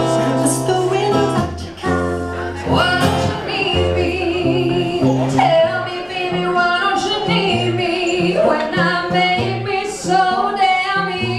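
A live duet: a woman and a man singing with wavering, ornamented vocal runs over acoustic guitar.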